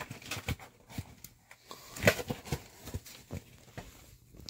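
A dog close to the microphone while being petted: scattered soft knocks, clicks and rustling, with one louder knock about two seconds in.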